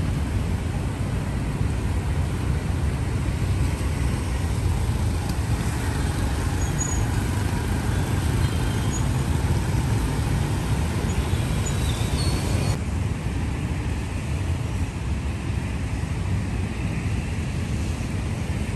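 Steady city road traffic: cars and motorbikes running around a busy roundabout, a continuous low rumble of engines and tyres. About thirteen seconds in the sound cuts abruptly to a duller, steadier wash of outdoor noise.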